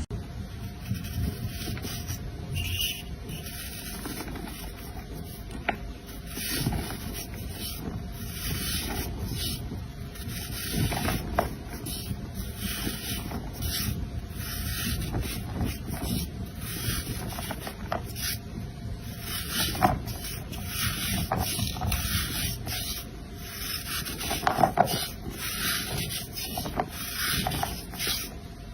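Kinetic sand being cut and scraped, a run of short gritty scraping and crunching strokes with a few sharper clicks.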